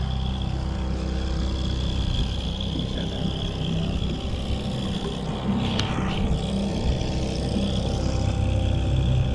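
Boat's outboard motor running steadily at trolling speed, an even low drone. A single sharp click about six seconds in.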